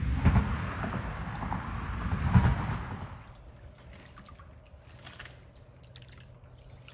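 A low rumble that swells twice in the first three seconds, then quieter water lapping at the bank, with small trickles and drips.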